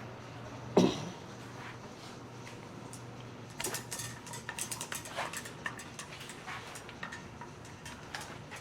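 Light metal clinks and rattles of tools and hardware being handled at a workbench, with a cluster of quick clinks a few seconds in, over a steady low hum.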